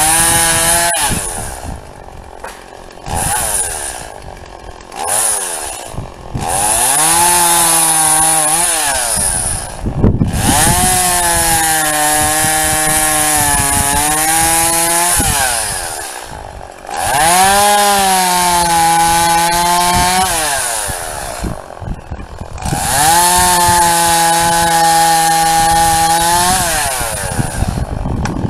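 Gas chainsaw idling with a few short blips of the throttle, then revved to full throttle four times for several seconds each. The pitch wavers and sags while the chain cuts through small trees and scrub, then drops back to idle between cuts.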